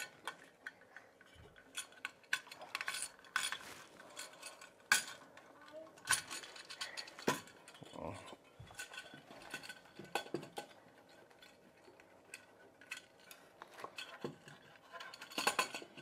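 Metal electrical box clinking and scraping against the wood as gloved hands work it into a hole cut in the floor: irregular clicks and knocks, the sharpest about five seconds in.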